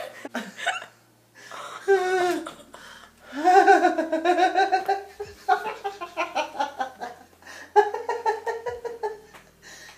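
Two women laughing hard, in several bursts of high-pitched, pulsing laughter separated by short pauses.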